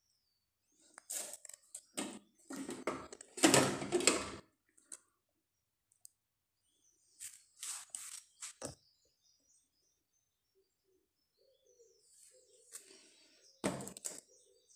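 Plastic blender and food processor parts being handled: irregular clicks, knocks and rustles in three short clusters, the busiest a few seconds in.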